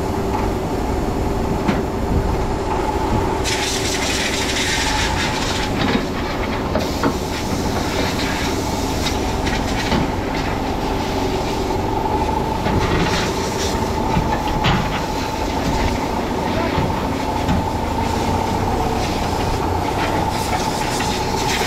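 A heavy machine's engine running steadily with a constant whine, mixed with scattered metallic clanks and knocks.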